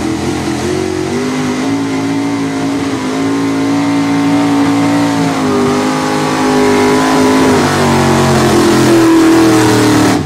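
Pulling truck's engine running hard at high revs under load, holding a high, slightly wavering pitch that climbs near the end, and growing louder over the clip.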